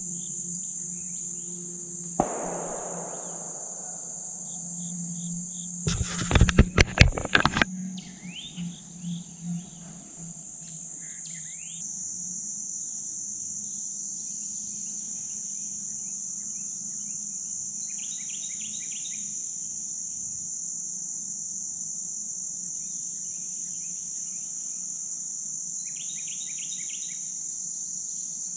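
Steady high-pitched drone of insects. About two seconds in, a single distant gunshot goes off and its echo rolls away. A few seconds later comes a quick flurry of loud knocks, and there are a few brief chirping trills near the end.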